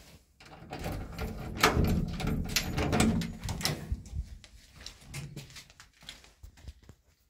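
Metal-framed door with wired-glass panels being pulled open, scraping and rattling for about four seconds with several sharp knocks, then a few faint taps.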